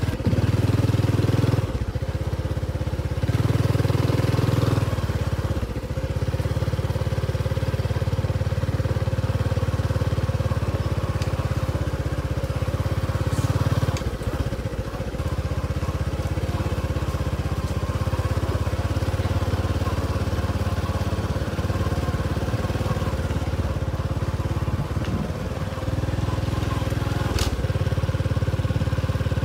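Steady low rumble of wind buffeting the microphone during a bicycle ride, with a faint steady hum throughout.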